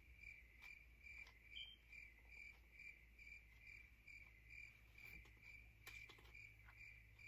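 Faint cricket chirping in an even, steady rhythm, a little over two chirps a second, with a few faint clicks about five to six seconds in.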